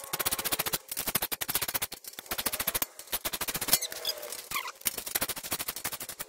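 Hand ratchet wrench clicking rapidly in several runs with short pauses, tightening the U-bolt nuts that clamp the front spring to the Model A crossmember.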